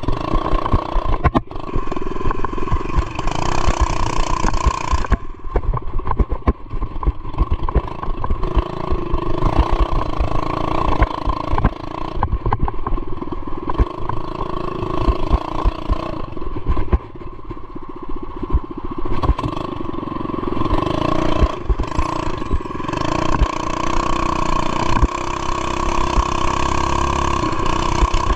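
Mini bike's small single-cylinder engine running hard while riding off-road, its pitch rising and falling with the throttle over a constant rattle. It eases off briefly a little past halfway, then picks up again.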